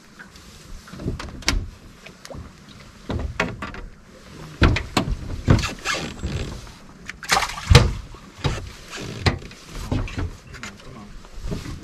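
Irregular knocks, thumps and clatter on an aluminum boat's deck as an angler moves about and handles gear down at the deck. The loudest bangs come a little past the middle.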